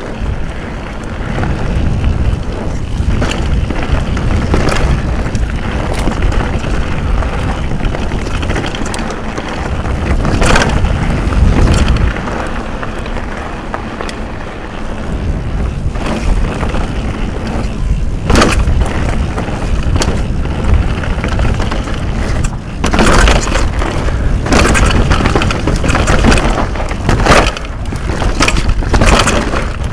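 Propain Rage Carbon downhill mountain bike descending a dirt trail at speed: steady wind and tyre rumble, with sharp knocks and clatter from the bike that come thick and fast in the last third as it crosses rocky ground. Wind buffets the helmet-mounted microphone.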